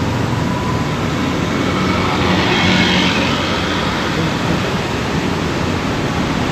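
City street traffic: motor scooters and cars passing through a junction, making a steady noise.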